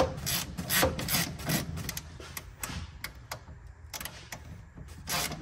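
Hand ratchet clicking in short strokes as a tail-light mounting bolt is driven in against the rubber gasket, squashing it down so the bolt can bite. The clicks come in quick bunches in the first second or so, then fewer and further apart.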